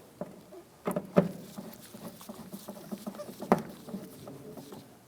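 Screws being snugged down into a plastic interior door trim panel: a few sharp clicks and knocks of the tool against the panel, the loudest about three and a half seconds in, with small rustling and tapping between.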